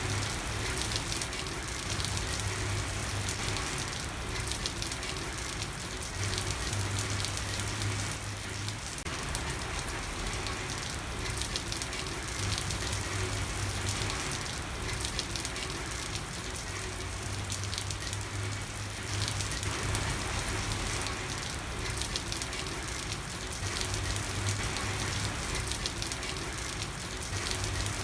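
Steady rain falling, a dense even patter of drops, with a low hum that swells and fades every few seconds.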